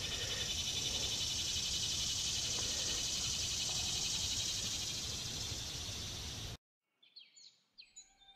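Summer insect chorus in the woods: a steady, high, finely pulsing buzz. It cuts off suddenly about six and a half seconds in, and a few faint high chirps follow near the end.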